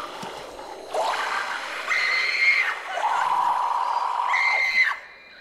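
High-pitched screaming in long held cries, two at once near the end, cutting off abruptly about five seconds in.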